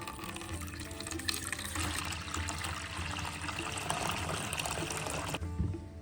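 Water pouring steadily, starting about two seconds in and stopping shortly before the end, over soft background music.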